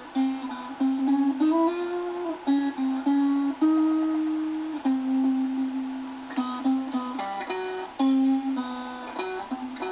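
Solo guitar playing the intro riff of a punk song in single sustained notes, one note bent upward about a second and a half in and held before dropping back; no drums or vocals yet.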